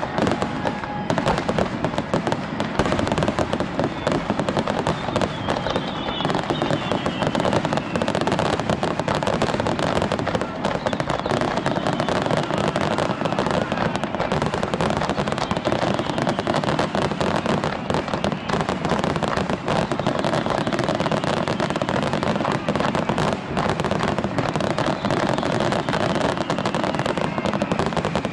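Aerial fireworks bursting in rapid succession: a dense, unbroken crackle and popping of many shells at once.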